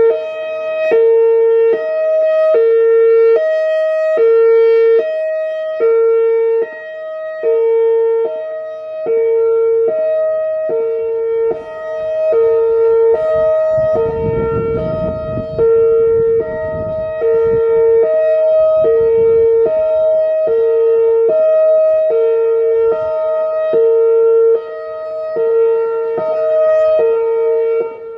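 Whelen Vortex R4 rotating electronic outdoor warning siren sounding its hi-lo tone: two steady pitches alternating back and forth, its loudness swelling and fading as the head turns. It stops near the end.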